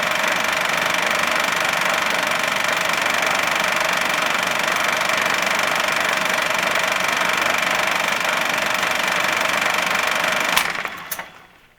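A projector runs with a steady mechanical whir. About ten and a half seconds in, a sharp click comes, then a few smaller clicks, and the running sound dies away to nothing over the last second as the machine stops.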